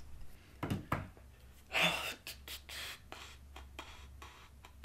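A person's short breathy exhale about two seconds in, after a soft knock, among scattered faint clicks in a small quiet room.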